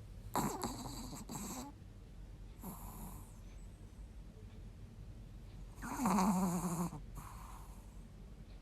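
Snoring: two snore cycles about five and a half seconds apart, each a louder snore followed by a shorter, softer breath. The second snore has a low buzz to it.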